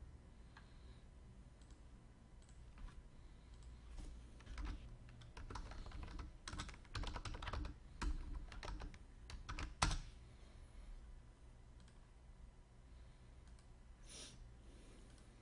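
Typing on a computer keyboard: scattered key clicks that turn into a quick run in the middle, ending on one louder click about ten seconds in, followed by a short soft hiss near the end.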